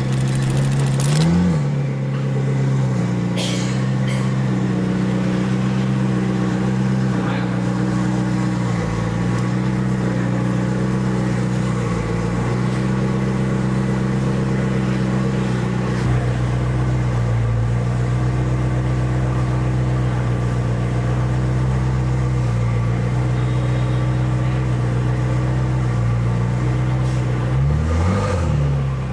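McLaren 650S Spider's twin-turbo V8 idling steadily through its newly fitted Fi Exhaust x Zacoe aftermarket exhaust, with a short rev about a second in and another near the end.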